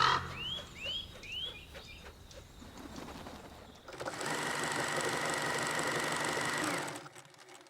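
A run of quick rising bird-like chirps, about three a second, fades out in the first second and a half. Then a steady mechanical whirring hiss starts about four seconds in, runs for about three seconds and cuts off suddenly.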